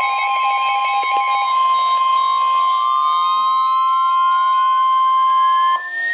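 Emergency alert tones. A steady high alarm tone sounds, joined by a lower tone and a pulsing higher tone that stop about a second and a half in. From about two seconds in, another tone slowly rises in pitch, and the steady tone cuts off near the end.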